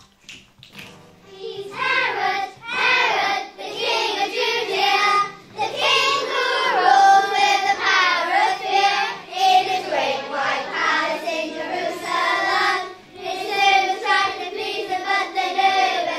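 Children singing a song together over a musical backing track, the singing starting about a second and a half in and going on in phrases with short breaks between them.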